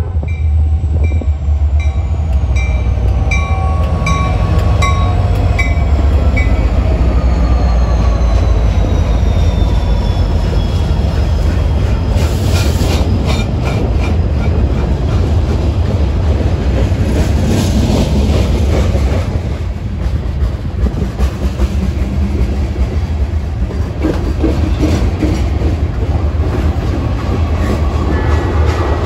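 Westbound Norfolk Southern diesel freight train passing close by: a heavy steady rumble with a whine falling in pitch over the first several seconds, then a long rhythmic clatter of wheels over the rails as the cars roll past.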